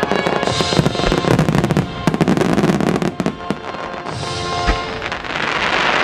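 Starmine fireworks going off in a rapid barrage of bangs and crackles, with the show's music playing faintly underneath. Near the end a dense crackling hiss swells as a large gold burst showers down.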